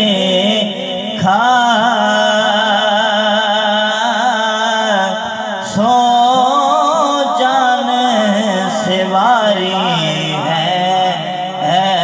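A man singing an Urdu naat into a microphone, drawing out long, wavering, ornamented notes over several phrases.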